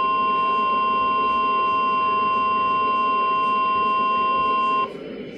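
Emergency Alert System attention signal: a steady, loud alert tone that cuts off abruptly about five seconds in, leaving a low hiss.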